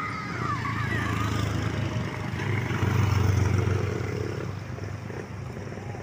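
Motor vehicle engine and road noise heard while riding along, a steady low hum that swells about halfway through and then eases off.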